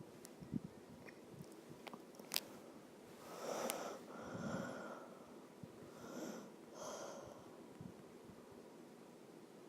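Faint, heavy breathing close to the microphone: two long breathy swells, with a few light clicks before them.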